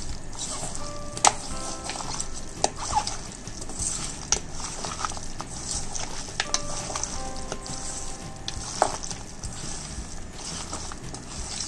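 Hands squelching and kneading raw chicken pieces coated in spice powders and ginger-garlic paste in a stainless steel bowl, with a few sharp clicks.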